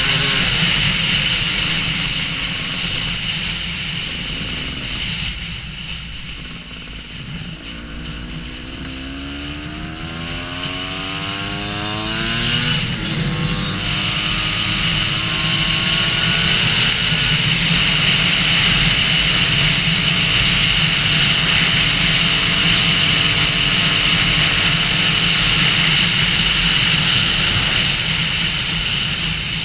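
Husqvarna WR250 two-stroke enduro motorcycle engine running while ridden off-road. The revs drop away for a few seconds, then climb again about a third of the way in with a shift near the middle, and hold steady under load after that.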